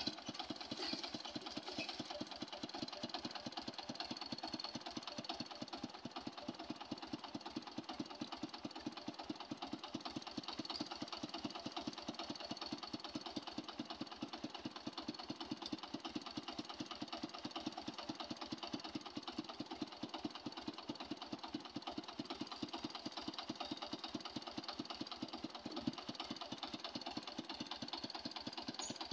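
Small stationary engine driving a borewell drilling rig, running steadily with a fast, even beat.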